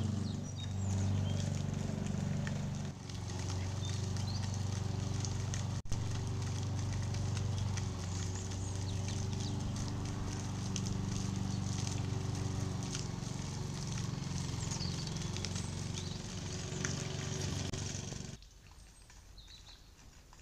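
Engine of grounds-maintenance machinery running steadily with a low drone; it stops abruptly near the end, leaving things much quieter.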